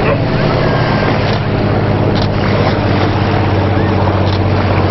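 A steady low engine drone running at an even speed throughout, with a couple of faint short taps about two and four seconds in.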